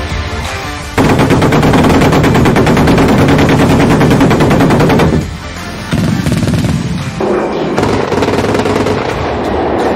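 Twin 35 mm Oerlikon KDA autocannons of a Flakpanzer Gepard firing long rapid bursts. The fire starts about a second in, breaks off briefly near the middle, and then resumes.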